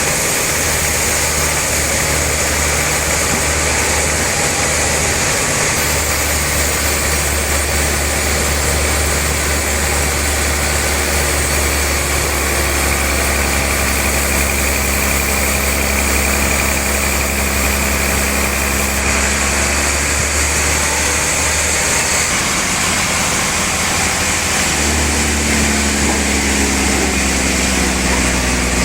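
Sawmill saw and its engine running steadily under load: a low engine hum beneath a loud, even rasping hiss. The hum drops out briefly a few times, and its pitch shifts near the end.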